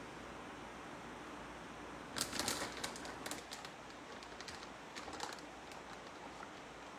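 Plastic bag of shredded cheese crinkling and clicking as it is handled, in a flurry of light crackles from about two seconds in to about five and a half seconds in.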